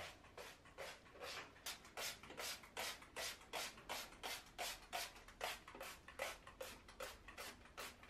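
A cloth scrubbing chrome shower fixtures by hand, a rhythmic back-and-forth rubbing at about three strokes a second.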